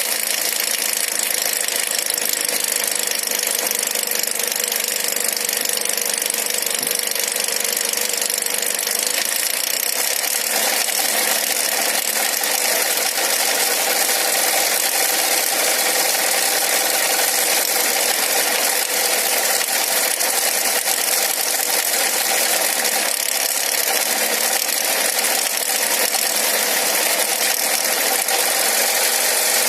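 Nissan X-Trail's MR20 2.0-litre four-cylinder petrol engine running steadily, with a knock in the engine.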